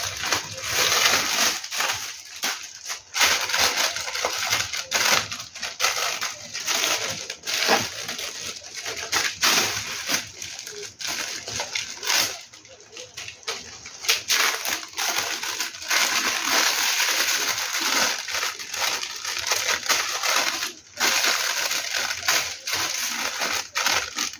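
Plastic snack wrappers crinkling and rustling as they are handled, unfolded and folded: a dense, continuous crackle, with a brief lull about halfway through.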